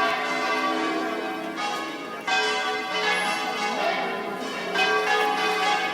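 Seville Cathedral's church bells ringing. Fresh strikes come roughly every two and a half seconds, three in all, and each rings on and overlaps the next.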